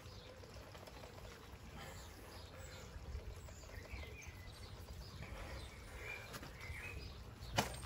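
Quiet garden background: a low steady rumble with scattered faint bird chirps, and one sharp click about seven and a half seconds in.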